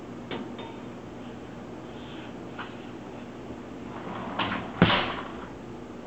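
Metal spoon knocking and scraping against a dishwasher's door and wire rack: a light click just after the start, then near the end a few louder scrapes with one sharp knock, the loudest sound, at about five seconds in.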